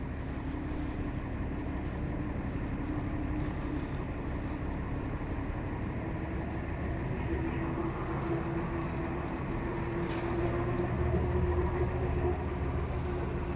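Tour boat's engine running steadily under a low rumble, its hum stepping up slightly in pitch about halfway through.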